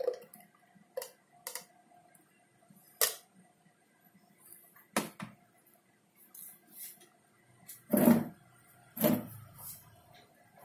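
Plastic bottles, cups and shaker lids knocked and set down on a plastic tray while a milkshake is being made: a handful of separate clicks and knocks, the loudest two near the end.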